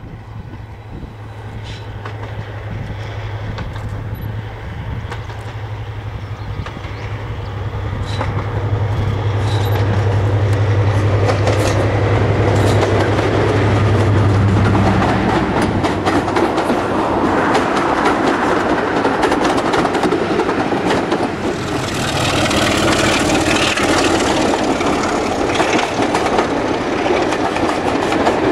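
A diesel locomotive approaches with a steady low engine drone that swells as it nears, then cuts off as it passes about halfway through. Its train of coaches follows, rattling and clattering loudly over the rail joints.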